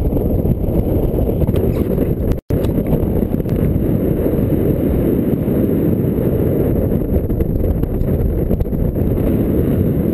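Wind buffeting the microphone of a camera on a flying paraglider: a loud, steady low rumble that cuts out for an instant about two and a half seconds in.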